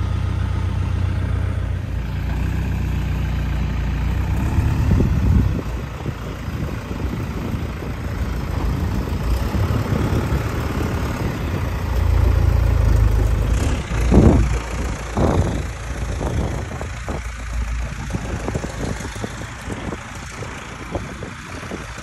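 Lull telehandler's engine running steadily, revving up twice as the boom lifts and carries a heavy roof truss. A few short knocks come just after the second rev.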